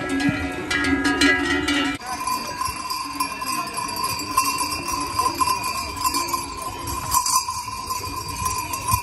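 Livestock bells clanking irregularly as draught horses walk past. About two seconds in this gives way to a steady high ringing tone that carries on to the end.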